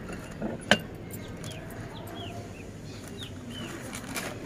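A sharp metallic knock from the cast-iron papad press being worked, with a softer one just before it. A few short bird chirps follow, and a brief plastic-sheet rustle near the end as the sheet is peeled off the pressed papad.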